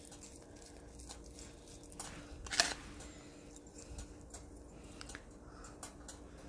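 Faint soft squishing and patting of wet hands rolling spiced beef mince into a ball, with one sharper knock about two and a half seconds in, over a faint steady hum.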